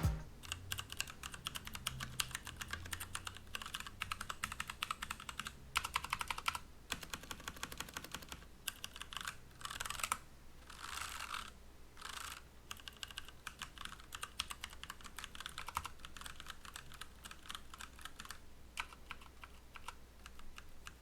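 Typing on a Motospeed CK108 mechanical keyboard with tactile Gateron Brown switches: a fast, fairly quiet clatter of keystrokes with a few short pauses.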